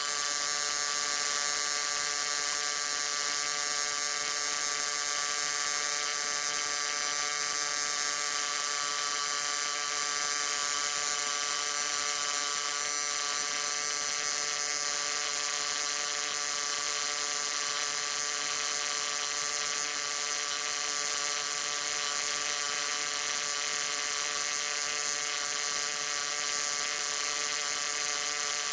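Low-voltage electric arc buzzing steadily and unbroken, a bright, hissy electrical buzz with many overtones.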